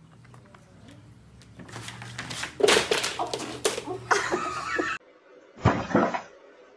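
A clatter of objects knocked off a table and hitting the floor: a rapid run of sharp knocks and bangs lasting about a second and a half. Near the end, one short loud thump.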